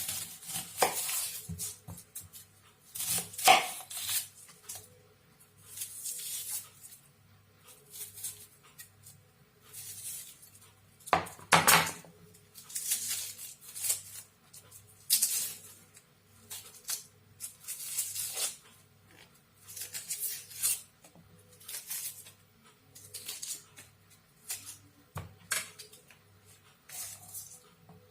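Kitchen utensils clattering and scraping in short irregular bursts every second or two, as onion and garlic are prepared, with faint background music under them.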